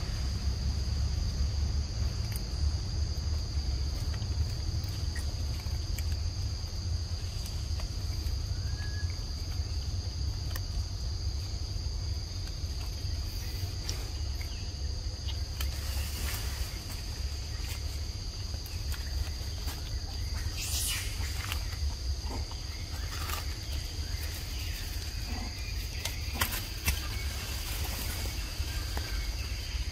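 Steady high-pitched insect chorus, like crickets or cicadas, running under a strong low rumble, with a few brief crackles around the middle and later on.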